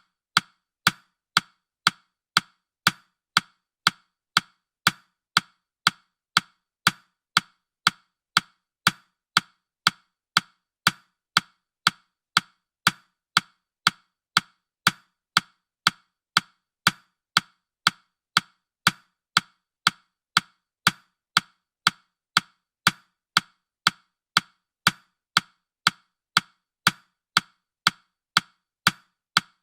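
Countdown timer's clock-tick sound effect: short, even clicks at about two a second, keeping a steady beat.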